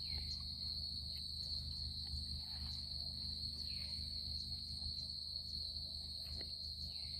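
Steady, unbroken high-pitched chorus of crickets, over a low steady rumble.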